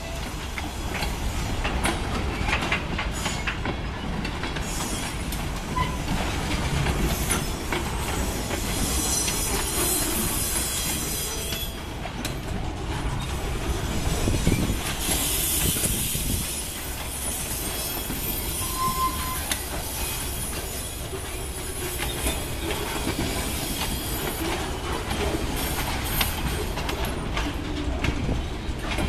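Freight train cars rolling past, steel wheels clicking over rail joints, with stretches of high-pitched wheel squeal and hiss at times.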